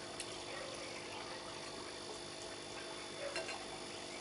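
Steady electrical hum of a background machine, with a few faint clicks, a small cluster of them a little past three seconds in.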